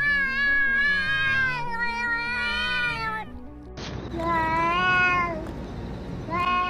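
A cat yowling in long, drawn-out calls that waver slightly in pitch: one through the first three seconds, a second shorter one after a brief pause, and a third starting near the end. Background music plays underneath.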